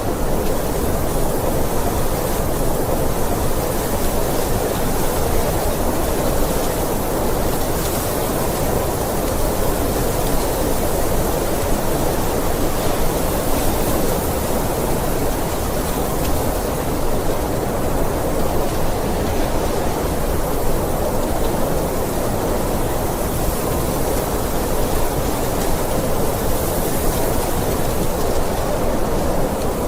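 Blizzard wind: a steady, even rushing noise that swells and eases slightly, with a thin hiss above it.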